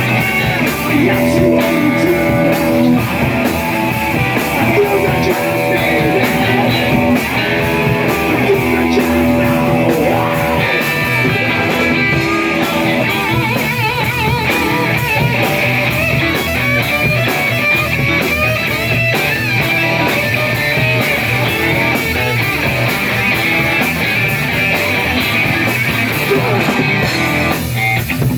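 Rock and roll band playing live: electric guitar over a drum kit and bass, a stretch with little or no singing.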